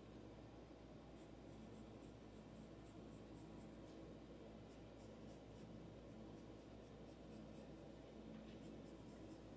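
Faint scratching of a pencil on paper in quick short strokes, coming in clusters with brief pauses, as fur is sketched.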